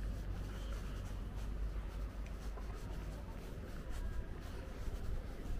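Faint scuffing footsteps on a gritty concrete lane over a low, steady outdoor rumble.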